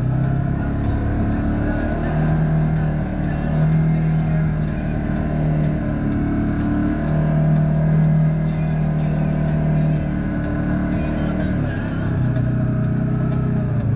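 Kawasaki KRX 1000 side-by-side's parallel-twin engine running as it drives through soft sand, its pitch stepping up and down with the throttle every few seconds.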